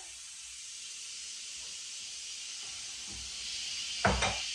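Instant Pot's pressure-release valve hissing steadily as steam vents during a quick pressure release after cooking. A brief thump about four seconds in.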